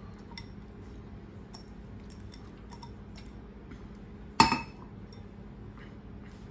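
Faint taps and clicks of a glass bowl against a stainless steel pot as chopped cucumber is scraped out of it by hand, then one sharp glass clink about four and a half seconds in as the bowl is set down.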